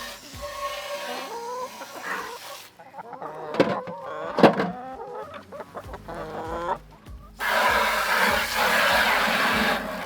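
Chickens clucking, in short calls that rise and fall in pitch, with two sharp knocks in the middle. A loud, steady rushing noise takes over for the last two and a half seconds.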